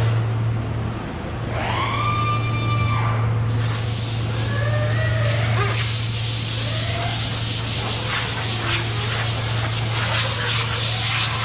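Compressed-air blow gun hissing steadily from about three and a half seconds in, blowing wax and grease remover off a panel before painting, over a steady low hum. Before the air starts, a short whine rises and falls.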